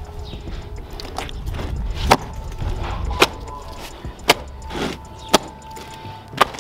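Wet, sticky bofrot (puff puff) dough being beaten by hand in a plastic basin: the stretchy dough is lifted and slapped back down. Five sharp wet slaps about a second apart, starting about two seconds in.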